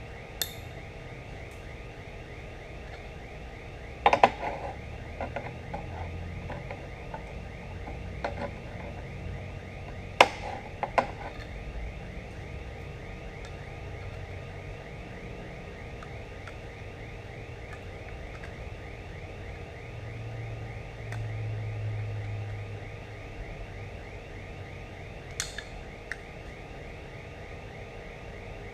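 Sharp clinks and knocks of steel parts being handled and set down on a steel welding table, a few at a time, the loudest about four seconds in and again around ten seconds in, over a steady shop hum.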